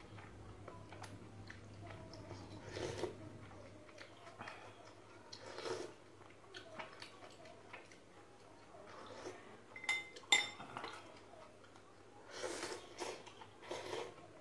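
Blue crayfish eating, its mouthparts crunching food in scattered small clicks and crackles, with a louder run of clicks about ten seconds in. A faint low steady hum lies underneath.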